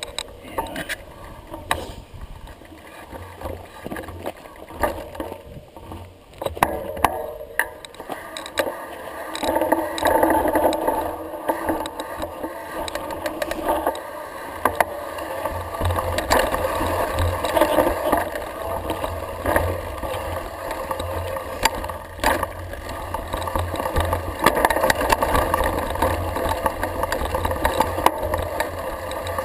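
Mountain bike riding downhill on a rough dirt and stone singletrack: continuous tyre noise and bike rattle, with frequent sharp knocks as the wheels strike rocks and roots. A low rumble grows stronger from about halfway.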